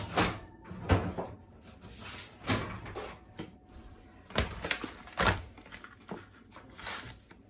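Kitchen handling noises: several separate knocks and bumps a second or two apart, like cupboard doors and things being set down on the counter.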